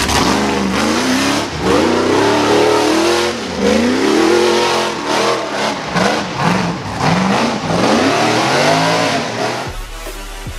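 Rock bouncer buggy's engine revving hard in repeated bursts, its pitch climbing and dropping again and again under load on a steep rocky climb. Near the end it cuts off and electronic music begins.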